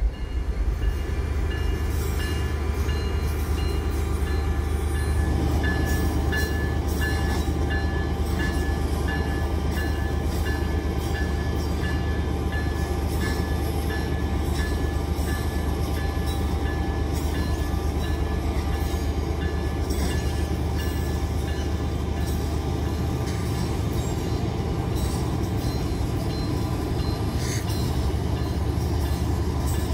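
Union Pacific diesel locomotives running close by: a steady, deep engine rumble. Through most of the first twenty seconds a thin high tone pulses over it a little under twice a second.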